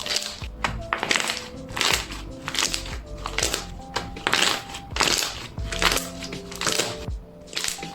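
Slime being squeezed and pressed by hand, giving repeated short crackling crunches about once or twice a second, over background music with sustained tones.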